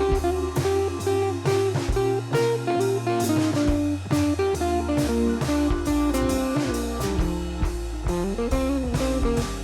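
Background music: a blues-style tune led by guitar over a drum kit with a steady beat.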